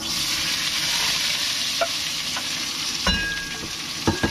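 Chopped green peppers and greens hitting hot oil in a hammered iron wok, sizzling loudly from the moment they go in, while being stirred with a wooden spatula. A few sharp knocks and a ringing clink sound over the sizzle.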